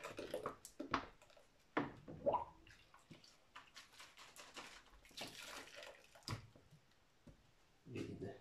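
Soapy water sloshing and splashing in a plastic basin as a PET bottle is washed in it, with irregular splashes and light knocks of the bottle.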